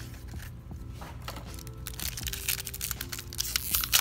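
Foil Yu-Gi-Oh booster pack wrapper being crinkled and torn open by hand, the crackling growing denser and louder toward the end.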